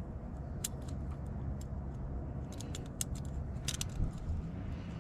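Small metallic clicks and taps from lock parts and tools as a deadbolt's lock cylinder is worked on for rekeying. The clicks are scattered, with a cluster of them about two and a half to four seconds in, over a steady low hum.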